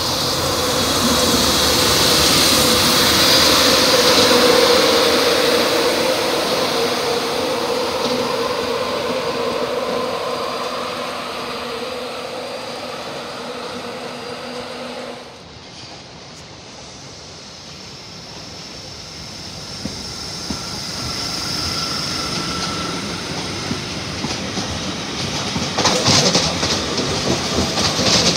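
LNER InterCity 225 train, Mark 4 coaches followed by the Class 91 electric locomotive, passing with steady wheel and traction noise and a hum, which falls away suddenly about halfway. Another train then comes in, and near the end its wheels click over rail joints and points.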